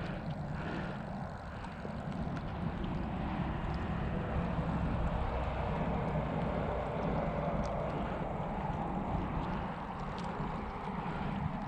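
Steady wind buffeting the microphone, a low rumbling rush, over a wind-rippled lake.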